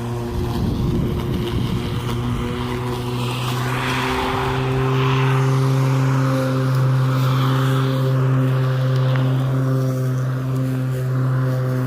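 Hart 16-inch 20-volt cordless lawn mower running under power, its electric motor and spinning blade giving a steady hum. The hum falters briefly about four seconds in and then carries on slightly louder, with a rush of hissing noise around that point.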